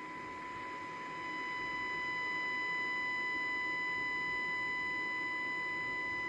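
A steady, high-pitched electronic tone with fainter higher overtones, over a hiss that grows louder about a second in, from the radio-tuning test setup.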